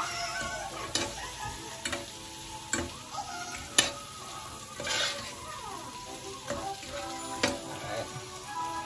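Sliced steak with onions and peppers sizzling in butter in a frying pan as it is stirred. A utensil scrapes through the food and knocks against the pan in several sharp clacks about a second apart.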